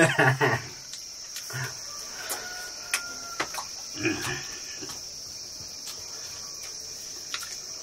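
Steady high-pitched chorus of insects, unbroken throughout, with a few short voice sounds and small clicks over it near the start and about four seconds in.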